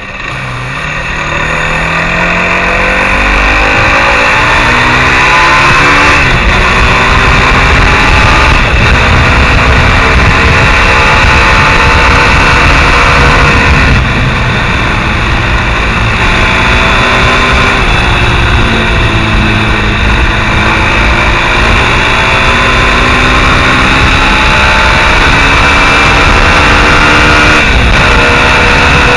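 Mondial SMX enduro motorcycle engine accelerating on the road, its revs climbing and then falling back at each gear change, several times over. Steady wind rush runs underneath.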